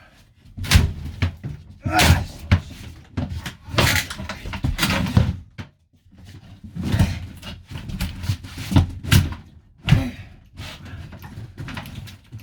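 Irregular knocks, thuds and scraping of hands-on work, wiring and fittings being pulled and handled inside a van's interior, with a brief lull about six seconds in.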